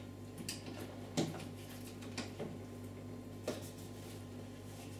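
A few faint clicks and light rattles of a saw chain and guide bar being handled and fitted onto a cordless chainsaw's drive sprocket, the sharpest about a second in, over a faint steady hum.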